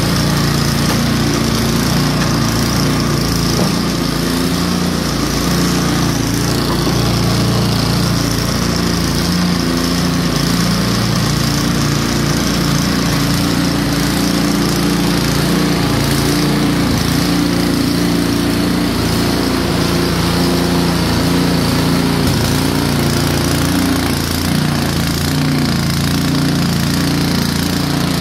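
Troy-Bilt Storm 2410 snow blower's single-cylinder four-stroke engine running steadily, shortly after a cold start.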